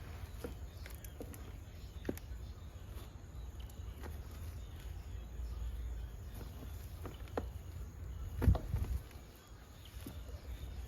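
Scattered light clicks, taps and rustles of hands working through a container of garden soil over a low steady rumble, with one louder thump about eight and a half seconds in.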